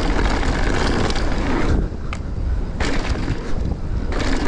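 Mountain bike riding down a dry dirt jump line: tyres rumbling over the dirt, with wind on the camera's microphone and a few knocks around the middle.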